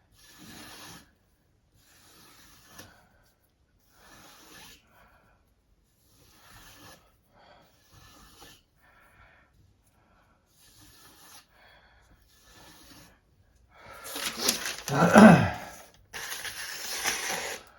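Abrasive stone of a guided knife sharpener stroked along a chef's knife edge: short scraping strokes, about one every one and a half to two seconds. Near the end comes a louder, longer rasping stretch.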